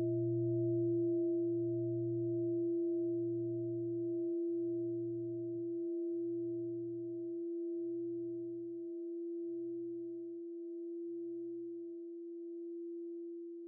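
A struck bell ringing and slowly fading: a steady hum with a fainter higher overtone, and a lower tone that pulses about once every second and a half, weakening until it dies out near the end.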